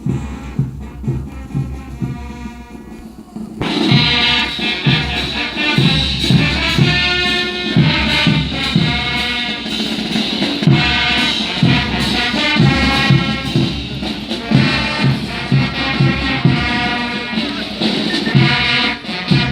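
Brass band with drums playing loud carnival music: drums and a quieter melody open, and about three and a half seconds in the full brass section comes in strongly over a steady beat.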